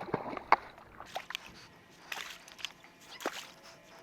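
Water splashing and sloshing in short, irregular bursts as something is worked through the water to catch a drifting glove.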